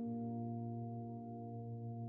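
Background music: a sustained chord of held tones, slowly fading.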